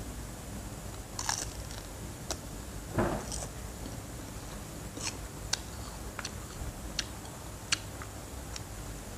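Crispy hot-chili fried seaweed sheet being bitten and chewed: about ten short, sharp crunches scattered irregularly, the biggest about three seconds in.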